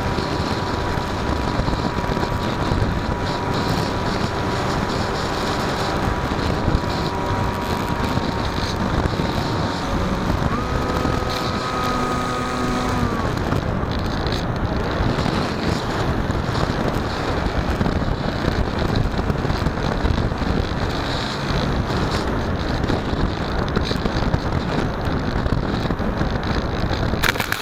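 Wind rushing over the wing-mounted camera's microphone of an electric foamboard flying wing in flight, with the motor and propeller whining steadily. About ten seconds in the whine jumps higher in pitch for a couple of seconds, then drops away.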